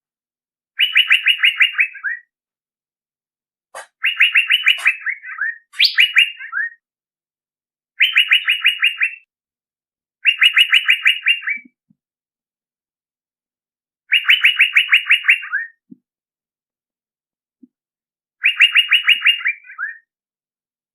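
Male Asian fairy-bluebird (cucak biru) calling: seven short bursts of rapid, evenly repeated notes, each ending in a few falling notes, with brief pauses between bursts.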